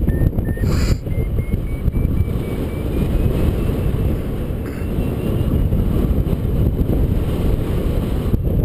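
Wind rushing over the microphone of a paraglider in flight. Behind it, a variometer beeps quickly, its pitch slowly rising: the sign of a glider climbing in lift.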